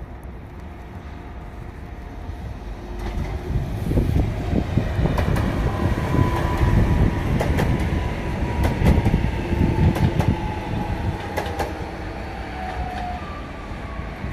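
Koleje Dolnośląskie passenger train passing close by. Its rumble builds to a peak in the middle and then fades, with repeated wheel clicks over the rail joints and a faint whine that falls slightly in pitch as it moves away.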